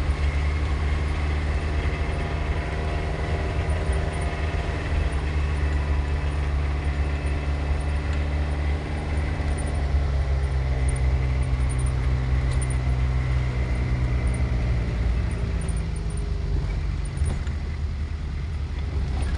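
A car's engine drone and road noise while driving, a steady low hum whose pitch shifts a couple of times partway through.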